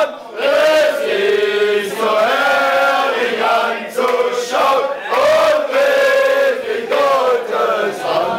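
A group of men singing a chant together, with drawn-out notes and brief breaths between phrases.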